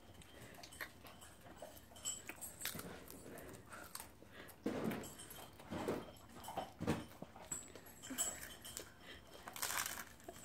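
Children chewing mouthfuls of dry saltine crackers: faint crunching and wet mouth noises, with a few short muffled vocal sounds about halfway through.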